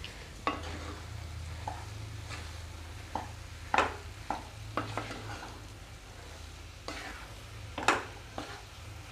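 Wooden spatula stirring a thick mashed-potato and paneer stuffing in a nonstick kadai: irregular scrapes and knocks against the pan, over a low steady hum.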